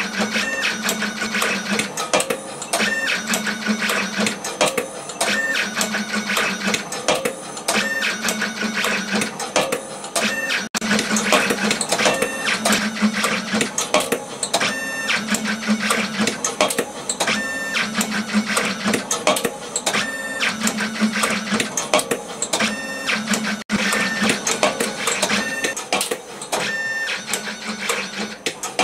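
Kodera CASTING-series wire processing machine and CC-100 belt-conveyor wire collector running repeated cycles: short motor whines and a low hum, with rapid clicks and clacks, repeating every two to three seconds.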